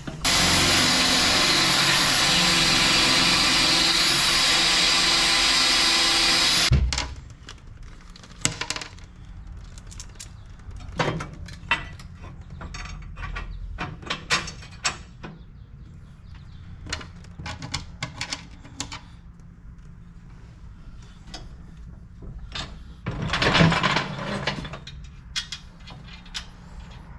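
A power tool runs loudly and steadily, then stops abruptly about seven seconds in. After that come scattered knocks and clanks of parts being handled, with a brief louder burst of noise near the end.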